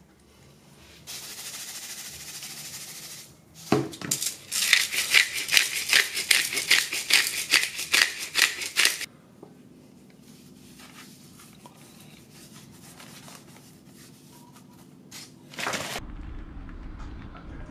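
Seasoning shaker rattled over a whole fish in quick, even shakes, about three a second for some five seconds, after a short stretch of steady hiss. Near the end a steady low rumble comes in.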